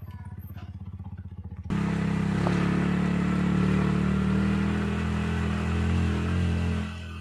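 A vehicle engine running steadily with a fast low pulse. About two seconds in it becomes abruptly much louder, with a rushing noise over it, for about five seconds, then drops back near the end.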